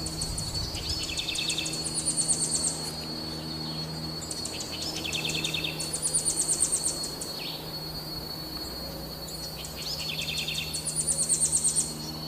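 Cicadas singing: a steady high buzz, with three louder bouts of rapid, ticking pulses about every four to five seconds.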